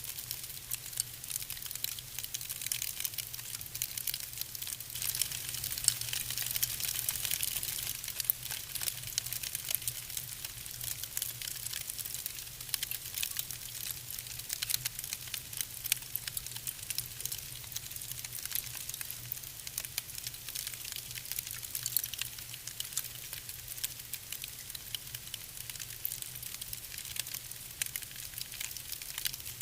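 Wood fire burning in a fireplace, with constant irregular crackling and sharp snaps over a soft hiss.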